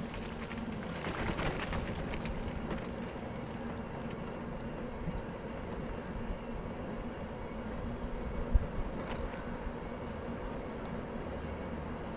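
Bicycle rolling along a trail: a steady hum of tyres and drivetrain with air rushing past, and one sharp bump about eight and a half seconds in.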